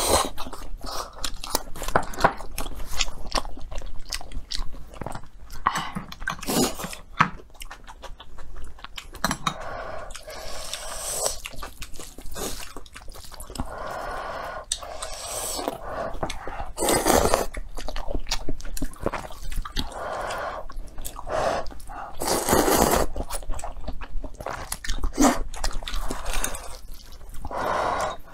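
Close-miked mouth sounds of eating: wet chewing and crunching clicks, with several longer noodle slurps.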